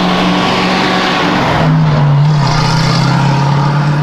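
Classic car's engine running at a steady note as it drives past, louder as it goes by about halfway through, with the pitch dropping as it moves away.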